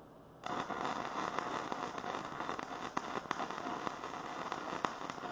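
Flux-core wire welder's arc crackling steadily as it lays a bead on steel, set at about 115 amps, starting about half a second in.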